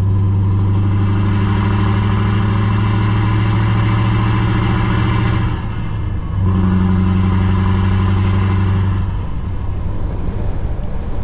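Scania S770's 16-litre V8 diesel pulling steadily under load through its two upright straight exhaust stacks, a deep, even note. It dips briefly about halfway through, then pulls again and eases off near the end.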